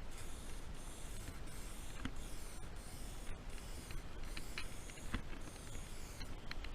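2K aerosol spray paint can hissing in a run of short passes, each lasting about half a second to a second, with brief breaks between them, plus a few faint clicks.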